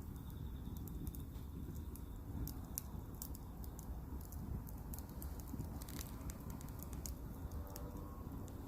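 Wood fire crackling, with irregular sharp pops and snaps over a low steady rumble; one louder snap about six seconds in.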